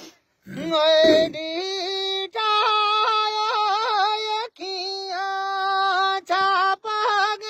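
A man's unaccompanied voice sings a Gojri baith folk song in a high register. He holds long, wavering notes with ornamented turns, broken by short pauses about every two seconds.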